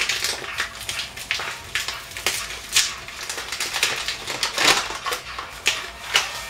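Bag of sugar crinkling and rustling in a string of irregular crackles as it is handled, folded and squeezed shut.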